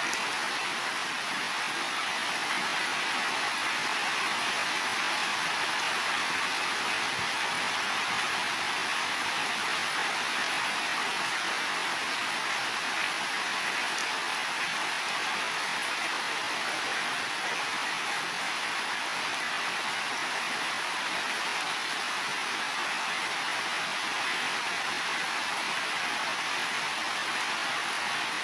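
Heavy rain falling steadily on building roofs, an even hiss with a few faint drip ticks.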